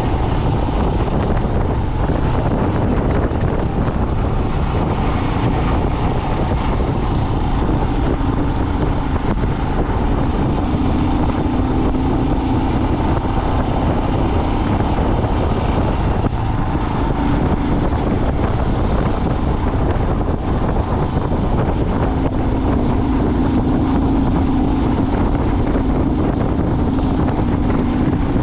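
A vehicle driving on a road: steady engine drone with road and wind noise, the engine hum swelling twice, about a third of the way in and near the end.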